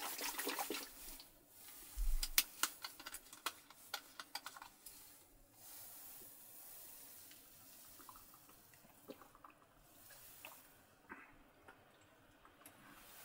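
Biting into and chewing a crisp toasted egg hot sandwich: dense crackling crunches in the first few seconds, then quieter chewing with a few small clicks.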